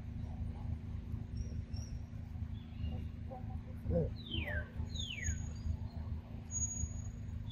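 Forest birds calling over a steady low rumble. Two clear whistles, each falling sharply in pitch, come just past the middle, followed by thin high whistles near the end and scattered small chirps. A brief low voice-like call comes about four seconds in.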